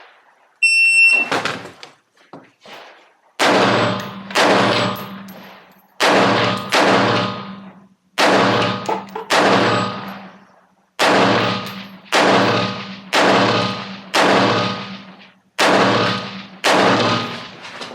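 A shot timer's start beep, then a competition rifle fired about a dozen times, mostly in quick pairs with a short pause between pairs. Each shot is a sharp, loud crack with a ringing tail, the rifle fitted with a muzzle brake.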